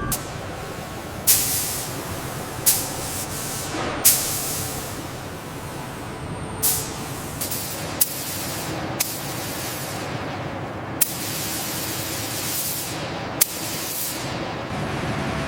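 A steady hiss broken by about nine short, sharp bursts of spraying or rushing air, each fading quickly, at uneven intervals.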